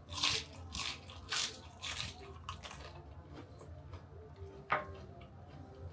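Chewing a mouthful of crispy dried squid and seafood noodle salad, with crunches about twice a second for the first three seconds, then softer chewing.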